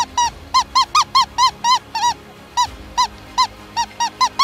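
Predator call sounding a rapid string of short squeaky notes, each rising then falling in pitch, about four a second with a brief pause around the middle.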